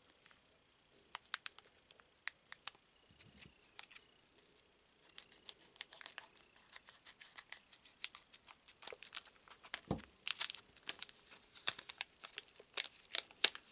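Foil trading-card booster pack being handled and torn open: a run of sharp crinkles and crackles, sparse at first and denser from about halfway through, with a single soft knock about ten seconds in.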